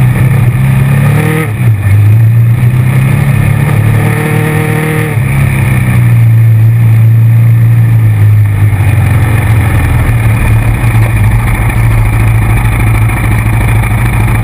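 ATV engine running steadily while riding over a dirt trail. Engine speed dips briefly about a second and a half in, then rises around four seconds in.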